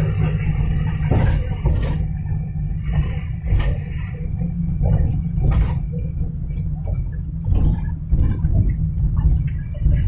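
Vehicle driving, heard from inside the cab: a steady low engine and road rumble with occasional sharp knocks and rattles.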